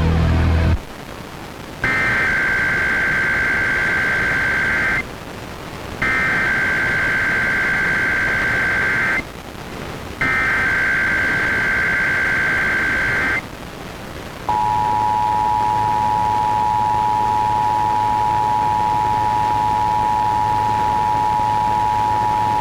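Emergency Alert System test tones on FM radio. First come three bursts of the SAME digital header, a harsh buzzing data warble about three seconds each with short gaps between. About fourteen seconds in, the steady two-tone EAS attention signal starts and holds. Music cuts off just under a second in.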